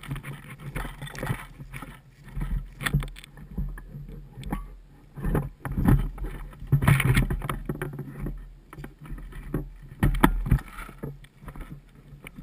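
Footsteps and rustling through dry grass, twigs and undergrowth, with knocks and rubbing close to an action camera's microphone, coming in irregular bursts and louder about halfway through and again near the end.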